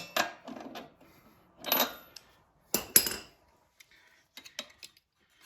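Hand tools clinking against a lawnmower's metal parts while something is tightened: a few sharp metallic knocks, the loudest pair about three seconds in, then light clicks.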